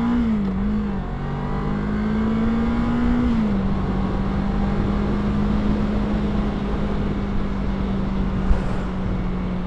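Kawasaki ER-6f 649 cc parallel-twin motorcycle engine idling at a standstill, its pitch wavering and lifting slightly in the first few seconds before settling to a steady idle.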